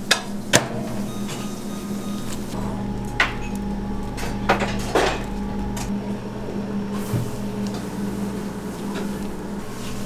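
Food-prep kitchen sounds: a steady low equipment hum, with a few sharp knocks and clatters of utensils and containers, several of them clustered just after the start and about halfway through.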